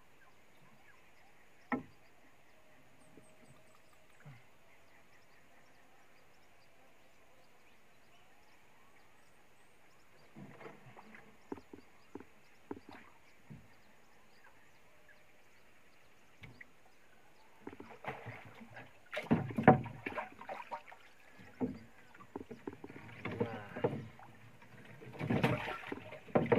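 Water splashing and knocks against a wooden boat as a long-handled landing net is worked in the water and hauled aboard. Mostly quiet at first with a single sharp click, then scattered knocks, growing into loud, irregular splashing and clatter in the second half.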